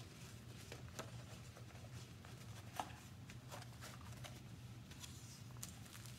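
Faint rustling and crinkling of a rolled diamond painting canvas and its paper cover being unrolled and pressed flat by hand, with scattered light clicks and one sharper tick nearly three seconds in.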